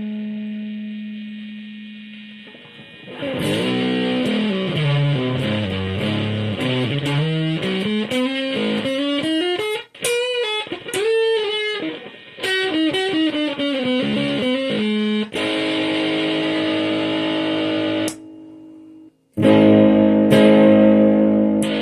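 Electric guitar played through a handmade booster and fuzz pedal. A held note fades out, then quick single-note runs go down and back up. A sustained chord follows, cuts off briefly, and a louder chord rings near the end.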